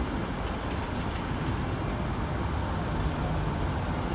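Steady rumble of an LNER InterCity 225's Mark 4 coaches rolling past the platform as the train arrives, their wheels running on the rails.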